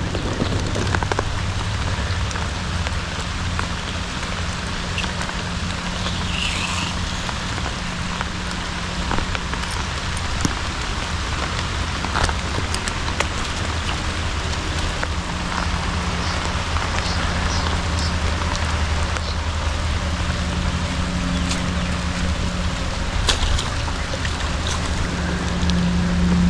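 Steady rain falling, a dense patter with scattered individual drop ticks. Under it runs a low steady hum that grows louder near the end.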